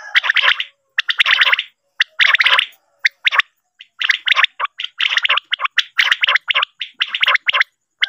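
Common quail calling in repeated short bursts of fast, rattling notes, one or two bursts a second with a short pause about three and a half seconds in. It is a call recording used to lure quail into nets.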